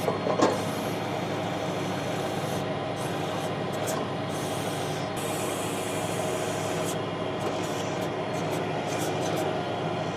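Tractor engine running steadily at working speed, driving a PTO backhoe's self-contained hydraulic pump, with two short knocks about half a second in.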